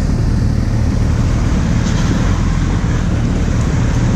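Kawasaki Z800 inline-four motorcycle running steadily while riding, with heavy wind noise on the action camera's microphone.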